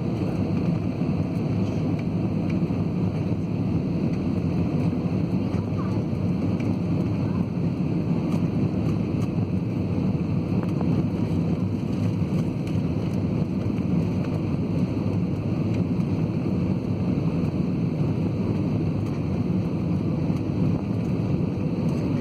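Steady low roar of engine and airflow noise inside the cabin of an Airbus A320-family airliner descending on approach.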